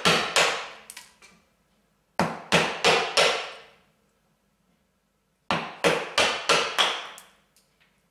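Mallet striking a bench chisel, chopping down into beech: three bursts of quick taps a few tenths of a second apart, each a sharp knock with a short ring.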